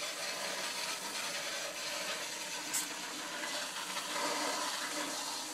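Steady hiss of a Water Saber's pressurised water jet spraying inside a small residential boiler, washing carbon soot out of it, with one brief sharp click a little before the middle.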